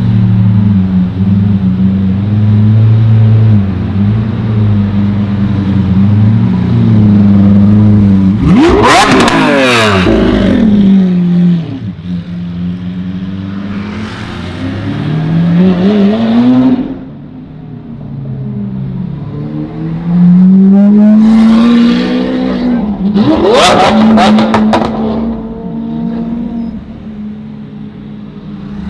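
Lamborghini Aventador SV's V12 with a Capristo exhaust, running at low revs while cruising. It gives two sharp throttle blips that rise and drop quickly, about nine seconds in and again about twenty-four seconds in, with gentler revs in between.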